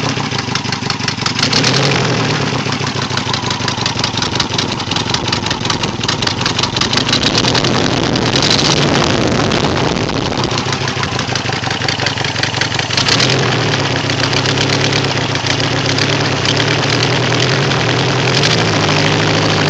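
Toyota 22RE fuel-injected four-cylinder engine of a 1987 4Runner running, with a fast even ticking from an exhaust leak. Under it is a faint chirp like a bird, which the owner has been told may mean the valves need adjusting.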